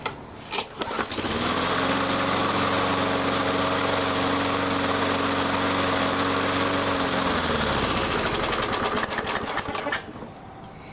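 Bolens lawn mower engine starting about a second in, running at a steady speed for about six seconds, then slowing and dying out, with a few rattling clicks as it runs down.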